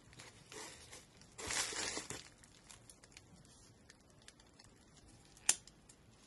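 Plastic bubble-wrap film crinkling and rustling as a knife is unwrapped. The rustle is loudest for about a second near the start, followed by light handling ticks and one sharp click about five and a half seconds in.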